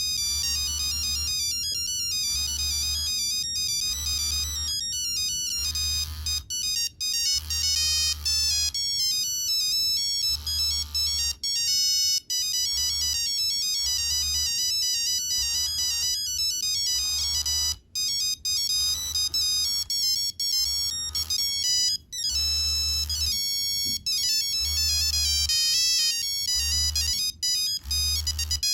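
Nokia 3390 playing a monophonic ringtone: a fast, beeping melody of single high notes in short repeating phrases. A low buzz pulses on and off along with the phrases.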